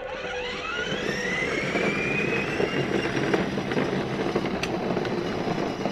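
Electric drive motor of a 12-volt ride-on toy Chevy truck, a rising whine as the truck pulls away that then settles into a steady run. Its wheels rumble on the concrete driveway underneath.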